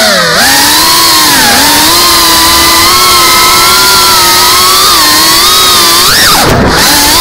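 Geprc cinewhoop FPV drone's brushless motors and ducted propellers whining, the pitch swaying up and down with throttle. About six and a half seconds in, the pitch drops sharply and then climbs back as the throttle is cut and punched.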